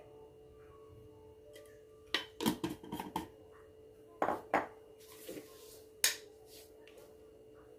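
A small spoon clinking and tapping against jars and a stone mortar while seasonings are spooned out: a quick run of clinks about two seconds in, two more a little after four seconds, and a single one near six seconds, over a faint steady hum.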